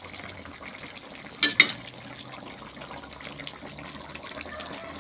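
Cooking liquid bubbling steadily in a pan, with a sharp clink of a utensil about one and a half seconds in.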